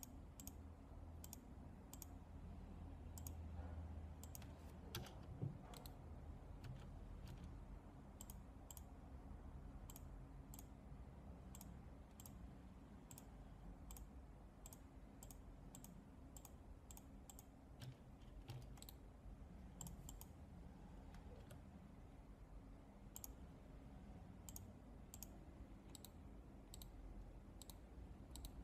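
Faint computer mouse clicking, short sharp clicks at an irregular pace of about one to two a second, over a low room hum.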